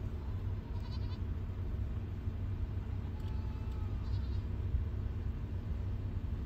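A flock of sheep and goats bleating faintly a few times, about a second in and again a few seconds later, over a steady low rumble.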